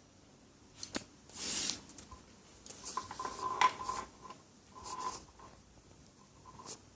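Metal hand tools and small parts being handled on a workbench: a sharp click about a second in, a scrape, then several clinks that ring briefly in the middle and again about two seconds later.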